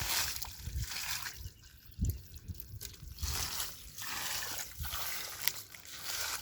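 Shallow water sloshing and splashing in uneven surges.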